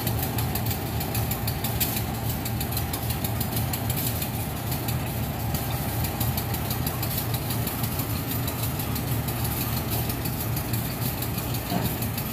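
Diesel-electric locomotive engine idling steadily, a fast, even throb over a low hum.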